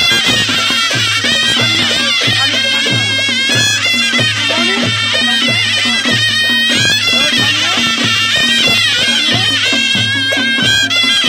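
Nepali panche baja band playing: a wailing shehnai melody over a steady, even beat of the band's drums.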